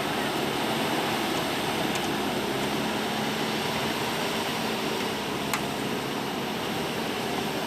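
Backhoe loader's diesel engine running steadily, with a single sharp click about five and a half seconds in.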